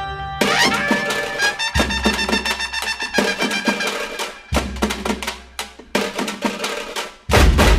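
Background music with drums and a steady beat, ending on a loud hit.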